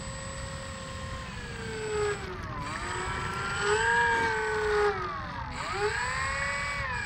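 Electric motor and propeller of a Dynam Cessna 188 RC plane whining as it taxis on the runway. The pitch drops and climbs again with the throttle twice, about two and a half and five and a half seconds in.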